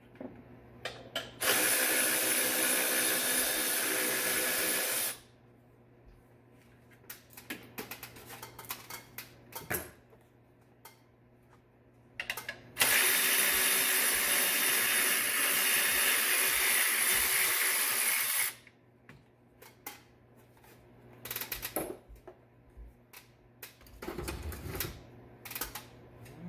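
A handheld power driver running in two long steady runs, the first about three and a half seconds and the second about five and a half, backing out the 15 mm bolts that hold the fan shroud. Light clicks and knocks of parts being handled come between and after the runs.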